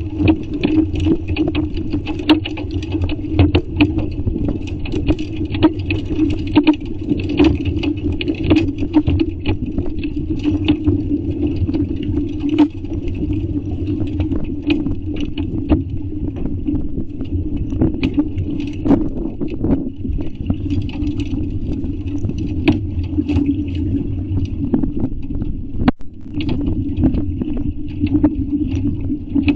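Heavy hail falling: dense, irregular sharp clicks of hailstones striking hard surfaces, over the steady hum of a running car engine.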